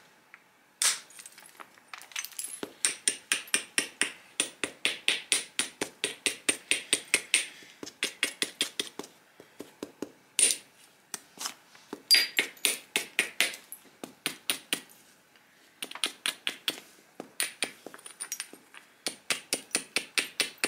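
Flintknapping a stone biface disc: a percussion tool tapping and striking along the stone's edge, making sharp clicks in quick runs of about four a second, with a few harder single blows between the runs, as the disc is thinned.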